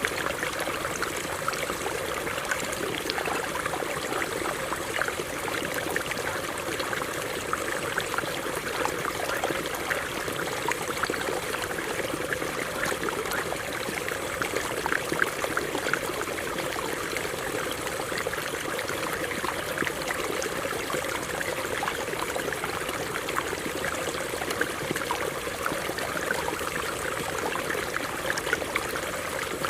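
A stream running over rocks: a steady babble of flowing water, full of small splashes.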